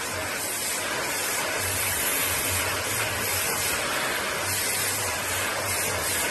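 Vacuum cleaner running steadily with its nozzle held against a cat's fur: a steady rushing hiss of suction, with a low hum underneath that swells and fades every second or so.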